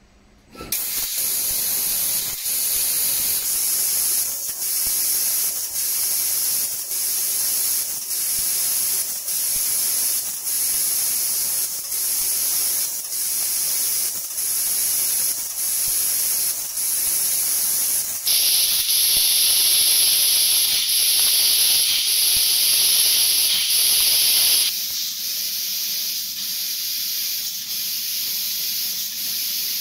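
Assist gas hissing from a fiber laser cutter's nozzle as it cuts thin copper sheet. The hiss starts abruptly and breaks briefly about once a second. Later it turns louder and fuller for several seconds, then drops back to a quieter hiss.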